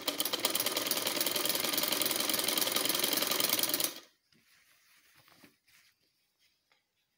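Sewing machine running fast, stitching a seam through the fabric for about four seconds, then stopping suddenly; afterwards faint rustling and small knocks of the fabric being handled.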